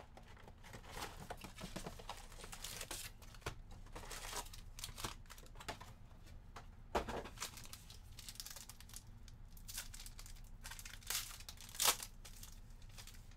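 Clear plastic wrapping being torn open and crinkled by hand: irregular crackling rustles, with sharper tears about seven seconds in and near the end.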